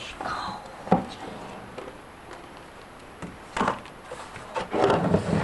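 Knocks and clicks of a plastic stain-remover tub being handled, with a sharp knock about a second in and a busier run of knocking and rustling near the end.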